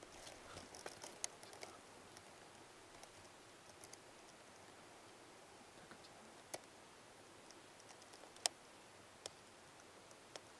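Near silence with faint rustling in the first couple of seconds and a handful of sharp, isolated clicks scattered through, the loudest about eight and a half seconds in.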